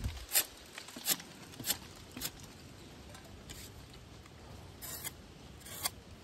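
Toddy-tapping knife shaving thin slices off the cut tip of a bound coconut spadix, the fresh cut that starts the sap flowing. There are four crisp slicing strokes about 0.6 s apart, then a few fainter, spaced strokes.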